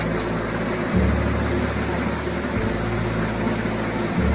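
Engine-driven pumpkin seed extraction machine running steadily, a continuous mechanical din whose low hum shifts a few times.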